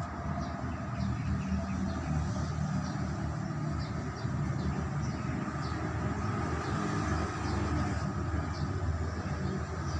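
Large engine running steadily: a low, even hum with faint high ticks about once a second.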